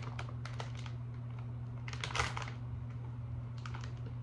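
Someone chewing crunchy snack curls, with a few bursts of crisp crunching; the loudest comes about two seconds in. A steady low hum runs underneath.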